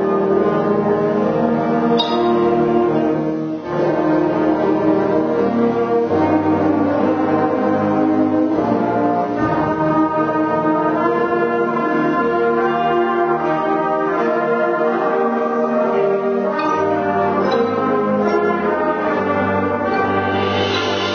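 Junior high concert band playing a piece, with brass to the fore in sustained chords and a few percussion strikes.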